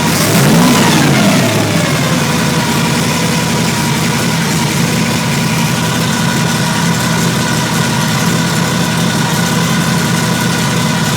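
347 stroker V8 engine blipped once, its pitch rising and falling back in the first second or so, then settling into a steady idle.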